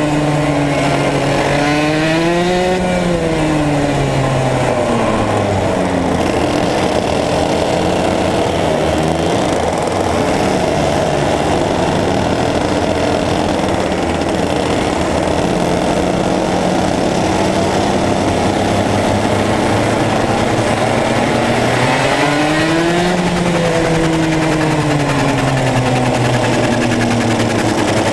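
Racing kart engine heard onboard, running hard at speed, its pitch climbing and then dropping twice, about two seconds in and again past twenty seconds, as the kart accelerates and lifts off for the corners.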